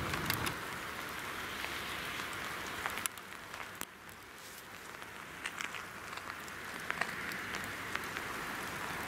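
Rain falling in a steady hiss, with scattered drops ticking close by.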